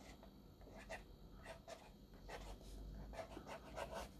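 Faint scratching of a homemade bamboo dip pen's nib on sketchbook paper, in a string of short, irregular strokes.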